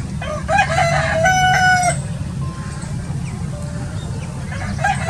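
Rooster crowing once: a few short notes and then a long held note, with a second crow starting near the end, over a steady low rumble.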